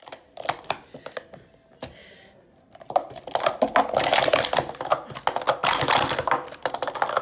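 Plastic sport stacking cups clacking against each other and the mat as they are stacked and unstacked at speed. A few separate clicks in the first two seconds, then a fast, continuous clatter from about three seconds in.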